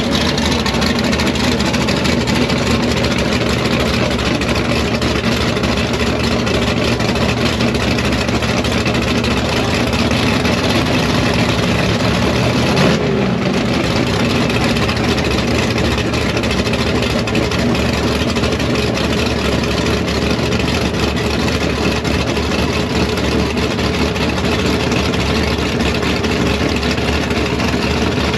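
Drag racing car engines idling, a loud, steady low rumble with a brief dip about halfway through.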